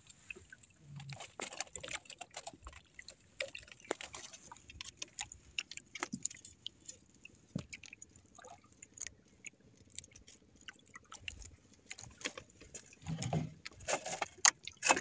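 Water lapping and splashing lightly against the hull of a small outrigger boat, with scattered small clicks and knocks as a fishing hand line is worked. The sound is a little louder near the end.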